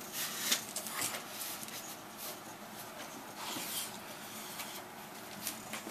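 Dogs' paws and claws scuffling and scratching on a hard floor as the bulldogs move about, with irregular light clicks and rustles.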